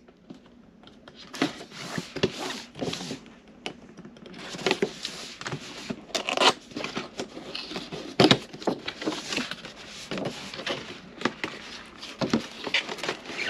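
Cardboard retail box being handled and opened by hand: irregular scraping, rubbing and tearing of cardboard, with scattered sharp clicks and taps.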